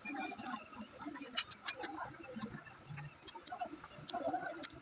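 Close-up mouth sounds of someone eating santol fruit: wet chewing with irregular lip smacks and clicks.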